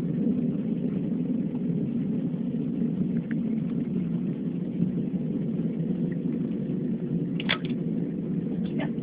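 A steady low droning rumble with no clear pitch, the mysterious night-time sound that was reported and recorded. Two short, high chirps cut in near the end.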